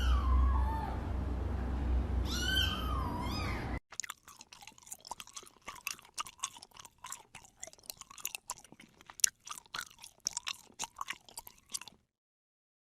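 A cat meows twice over a low hum. About four seconds in, this gives way to a quiet run of irregular crunching and chewing.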